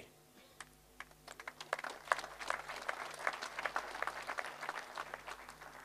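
Audience applause, fairly faint: scattered claps start about a second in, build to a steady patter of many hands, and thin out near the end.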